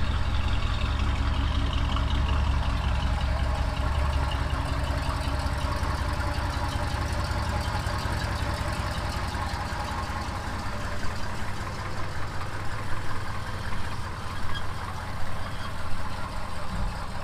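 1977 GMC Sprint's V8 engine running as the car pulls slowly out of the garage and rolls past at low speed. The engine sound is steady and deep, loudest in the first few seconds, with a few small surges near the end.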